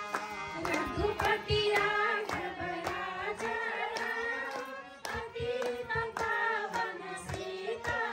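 Women singing a song to a hand-pumped harmonium, which holds steady reedy chords under the voices. Hands clap in time about twice a second.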